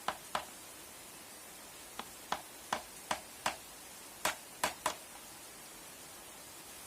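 Light, sharp hammer taps on nails, about ten of them: a quick pair at the start, then an irregular run of strikes that stops about five seconds in.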